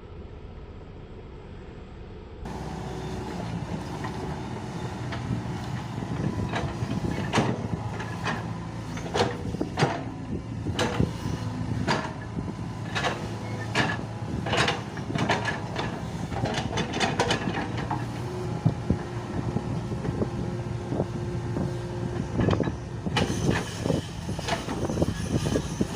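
Hitachi excavator's diesel engine running under work, with frequent sharp metallic clanks and knocks from its tracks and working parts. The engine picks up about two seconds in, and a steady whine joins it for a few seconds near the end.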